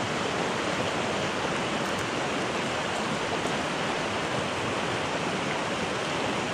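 Shallow rocky river rushing through rapids over boulders: a steady, unbroken rush of white water.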